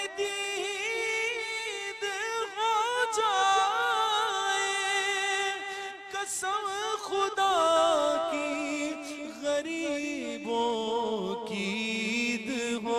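Male voice singing a naat in long, drawn-out ornamented melodic runs, over a held lower vocal tone.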